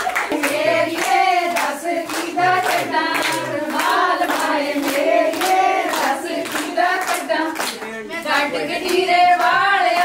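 A group of women singing a folk song together over steady hand-clapping, about three claps a second.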